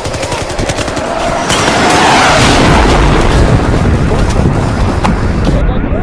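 Rapid automatic gunfire sound effect, swelling into a loud blast about one and a half seconds in. Near the end a car alarm starts wailing in quick repeated rising chirps.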